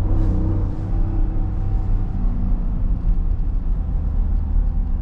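Dodge Durango on the move, heard from inside the cabin: a steady low engine and road rumble.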